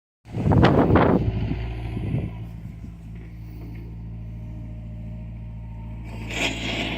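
John Deere excavator's diesel engine running steadily, louder and rougher for about the first second, then settling. A hiss comes in near the end.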